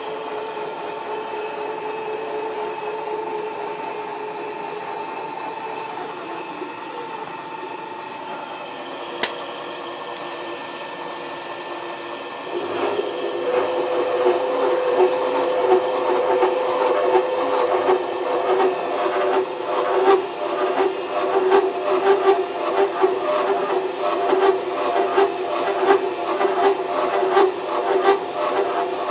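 Milling machine driving a slitting saw through a metal block held in a vise: a steady machine hum with the saw cutting. About twelve seconds in the cut gets louder and rougher, with a fast rattle of the saw teeth over the hum.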